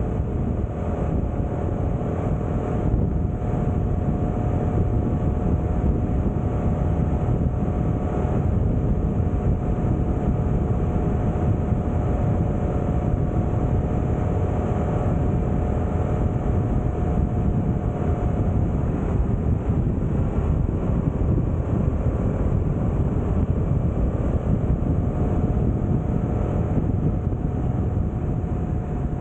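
Honda Transalp motorcycle running at a steady cruising speed: a constant engine hum under heavy, low wind and road rumble.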